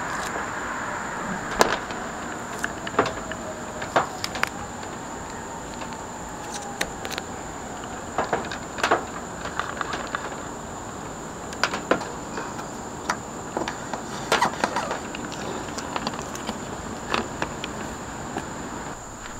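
Handling noises as a plastic cable entry housing and solar cables are fitted on the van's metal roof: scattered small clicks and taps at irregular intervals. Insects drone steadily at a high pitch in the background.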